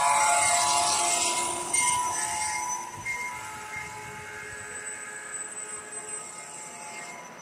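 G-scale garden railway trains rolling along their track: a loud rushing clatter of wheels for about the first two seconds, then quieter running with steady high tones over a light rattle.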